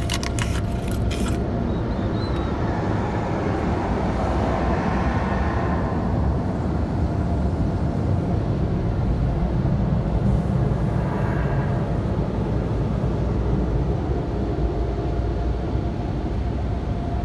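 Automatic car wash heard from inside the car's cabin: large rotating brushes scrubbing over the glass and body with a steady low rumble, swelling a little now and then as a brush passes. A quick run of sharp slaps in the first second or so.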